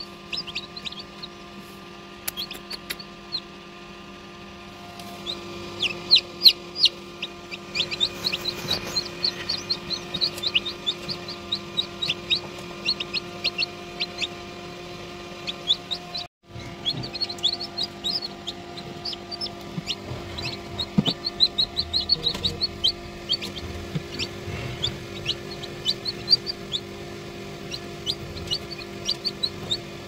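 Newly hatched Ayam Cemani chicks peeping in an incubator: many short, high, falling cheeps, a few at first, then a rapid, continuous chorus from about five seconds in. A steady hum runs underneath.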